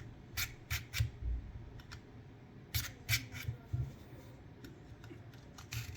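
Knife blade drawn through the ceramic edges of a Victorinox dual knife sharpener: short scraping strokes, a few at a time, honing a dull edge even.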